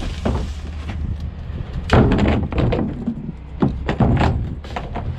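Plastic wheeled cart knocking and banging against the rear-loading garbage truck's tipper and hopper as it is dumped and brought down, with loud thuds about two seconds and four seconds in and smaller knocks between, over the truck's engine running.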